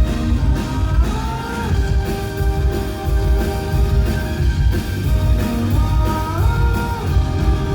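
Rock band playing an instrumental passage: a sustained lead guitar line over bass and drums. The lead note slides up in pitch twice, about a second in and again around six seconds in.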